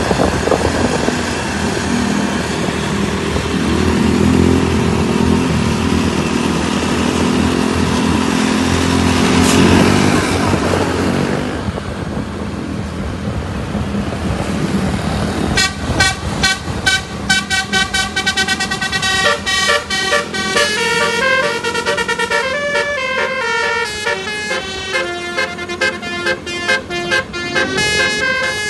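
Heavy vehicle engine and road noise for the first part, then, about halfway through, a multi-tone 'telolet' bus horn plays a quick tune of stepping notes. The horn keeps going for the rest of the time.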